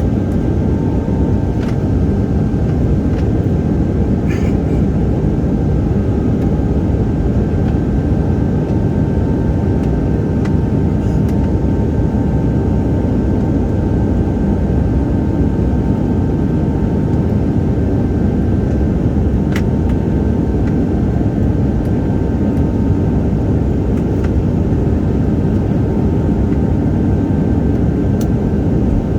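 Embraer jet's engines running at a steady high power during takeoff and climb: a dense, even rumble with two faint steady whining tones above it.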